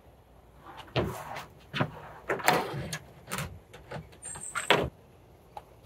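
A rope being threaded and pulled through a plastic kayak's carry handle: a series of short scraping swishes and knocks, about half a dozen, spaced irregularly.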